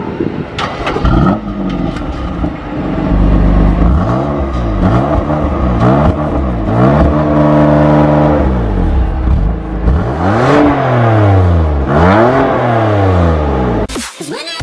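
BMW M2 Competition's S55 3.0-litre twin-turbo inline-six being revved through its exhaust: a series of rev blips, rising and falling in pitch, with a longer held rev in the middle. It cuts off suddenly near the end.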